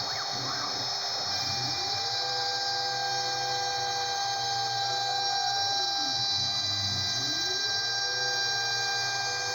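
CNC router cutting: the spindle runs with a steady high whine while the axis stepper motors rise in pitch, hold, and fall again twice as the machine speeds up and slows down through its moves.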